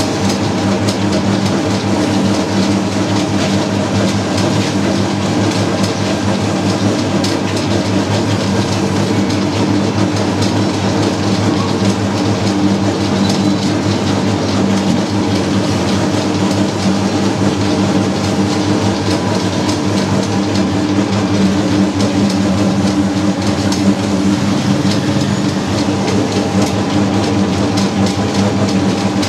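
Naswar (snuff) grinding-and-mixing machine running steadily: a constant low hum with continuous rattling and clicking as the bowl turns under the metal pestle through the tobacco mix.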